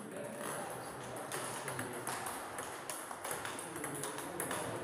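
Table tennis rally: the ball clicking sharply off the rubber bats and bouncing on the Donic table, a quick, uneven string of hits.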